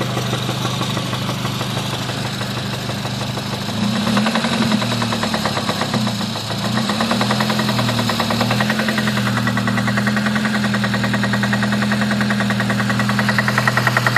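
2006 Honda Civic Si's K20 four-cylinder engine running with a fast, even knock. About four seconds in it takes more throttle and the revs rise and fall, then hold a little higher, where the knocking is plainer. The owner takes the knock for a failing rod bearing (rod knock), though spark knock is also suspected.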